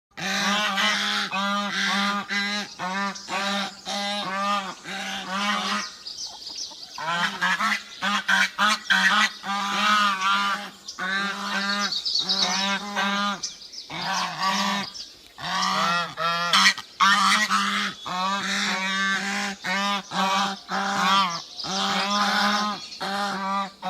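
Goose honking again and again, a quick run of short honks at about two a second, with brief pauses about a quarter of the way in and again just past halfway.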